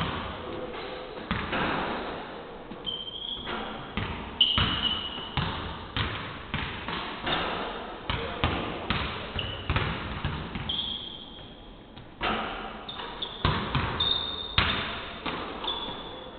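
Several basketballs bouncing unevenly on a hardwood court, echoing in a large sports hall, with short high squeaks of sneakers on the floor now and then.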